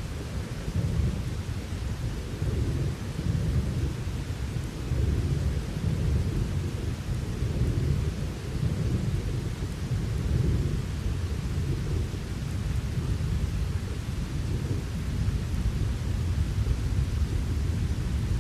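Thunder rumbling continuously in long rolls under a steady hiss of rain, with no sharp crack.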